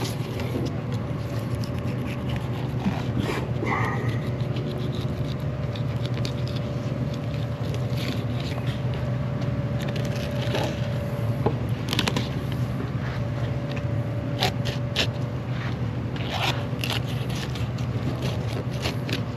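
Knife scraping and cutting through fish while filleting snapper, a run of short irregular scrapes and clicks over a steady low hum.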